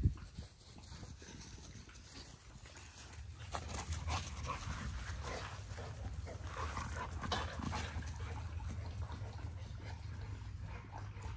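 XL American bully puppies playing around an adult dog on grass: scattered short puppy sounds and scuffling, busiest from about three and a half to eight seconds in, over a steady low rumble.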